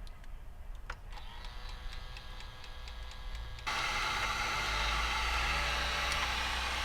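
Handheld label maker printing: a small motor feeding tape with rapid, even ticking. About three and a half seconds in, a louder steady rushing noise cuts in and lasts to the end.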